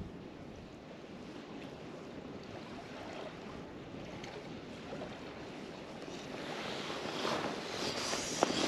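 Wind and small waves lapping at the edge of a loch. Over the last two seconds, louder rustling footsteps on the bank.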